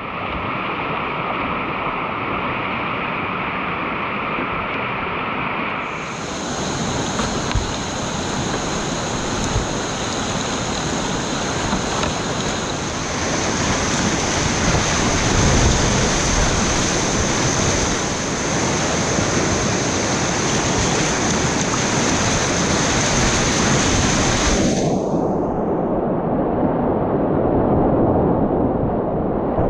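Whitewater rapids rushing and churning right around a kayak, heard close from a camera on the boat. The rush grows louder about halfway through, and a thin steady high tone sits over it for much of the time.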